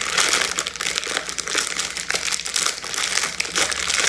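Plastic packaging of a pack of rice cakes crinkling and crackling continuously as it is handled and opened.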